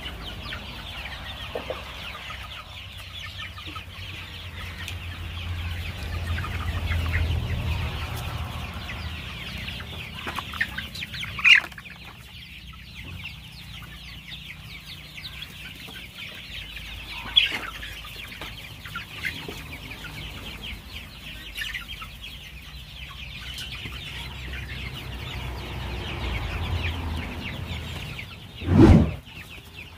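A flock of young Kaveri chickens clucking and chirping continuously, many birds calling at once, with a couple of louder single calls standing out. A loud thump near the end.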